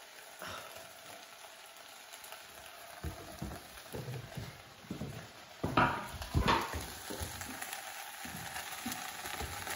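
Onions and chorizo frying in a pan with a soft, steady sizzle, while diced potatoes are tipped in from a wooden board; a few knocks, loudest about six seconds in.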